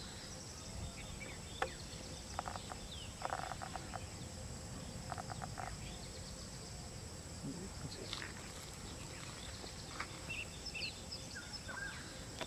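Forest ambience: a steady high insect drone with scattered short bird chirps and calls.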